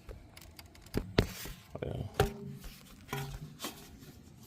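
Irregular clicks, clinks and knocks of a hand wrench against metal as a bolt on a car's starter is worked loose, the loudest knocks about one and two seconds in.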